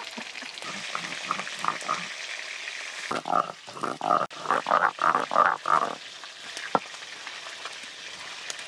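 Fish frying in hot oil in a wok, a steady sizzle. From about three to six seconds in, a run of rhythmic grinding strokes sounds over it: spice paste being ground with a stone on a flat grinding slab (shil-nora).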